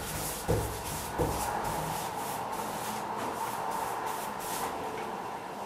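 Paintbrush stroking paint onto wooden woodwork: a repeated swishing rub of bristles, stroke after stroke, with a couple of soft knocks in the first second or so.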